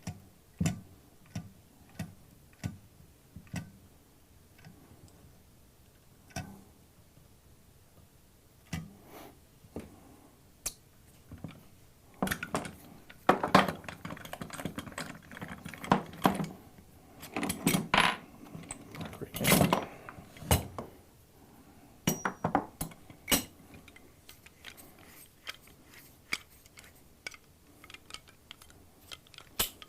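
Hand-held hydraulic crimper pumped to crimp a fitting onto an A/C hose, its handle clicking at a steady rate of about one and a half strokes a second at first. Then a long stretch of metal parts clinking and clattering, loudest in the middle.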